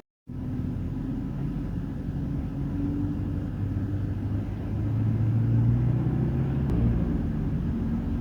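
Motor vehicle running, heard as a steady low engine rumble with road noise; the engine note grows louder from about halfway through.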